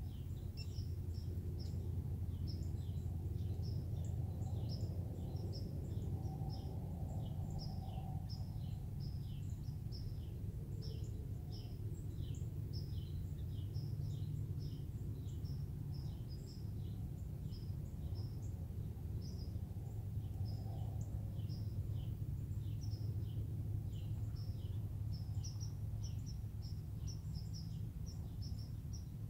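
Small birds chirping repeatedly: many short, high calls, each a quick downward note, coming every fraction of a second throughout. Beneath them runs a steady low rumble.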